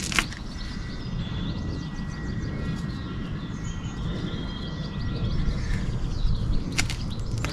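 Small birds chirping over a steady low rumble of outdoor background noise, with a sharp click just after the start and another near the end.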